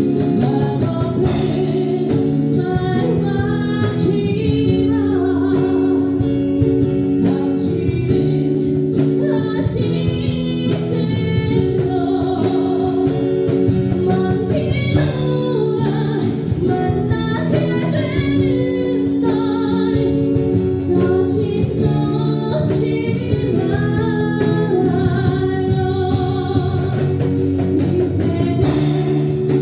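Ballad music: a lead melody over a sustained backing accompaniment.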